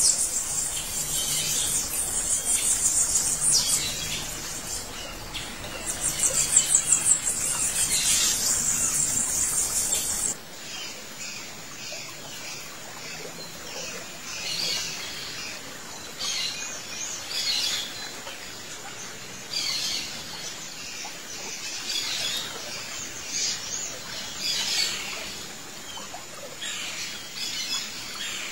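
Small birds chirping. For about the first ten seconds there is dense, rapid, high chirping, which cuts off suddenly. After that come scattered, separate chirps and short calls.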